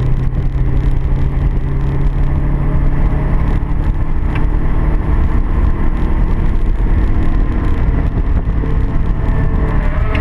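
Car engine running steadily at speed, with heavy road and wind rumble underneath.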